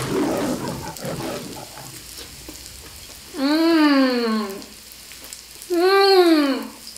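Crunchy chewing of a lettuce wrap in the first second or so, then two long "mmm" hums of enjoyment through a full mouth, each rising then falling in pitch. Pork belly sizzles faintly in the pan underneath.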